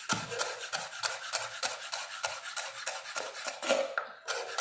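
Chef's knife slicing a red bell pepper into thin julienne strips on a wooden cutting board: quick, even strokes of the blade through the pepper onto the board, about five a second, with a short pause near the end.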